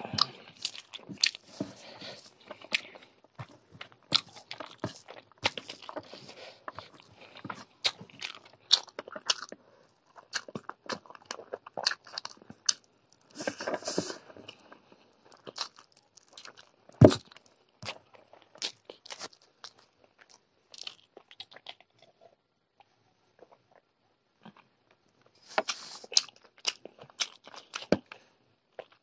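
Close-miked eating through a clip-on microphone: chewing chicken curry and rice eaten by hand, with many wet clicks and lip smacks. One sharp knock about 17 seconds in is the loudest sound.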